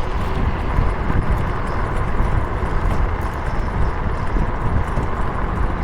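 Steady wind and road noise from a moving bike, with a ragged low rumble of wind buffeting the microphone.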